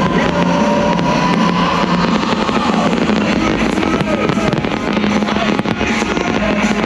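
Fireworks display: many sharp cracks and pops over a dense, steady rumble.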